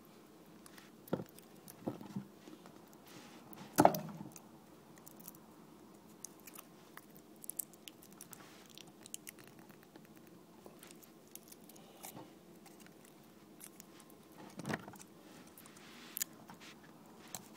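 Scattered clicks, taps and small knocks of hand tools and small parts being handled while an eGo-type e-cigarette battery is taken apart, the loudest about four seconds in.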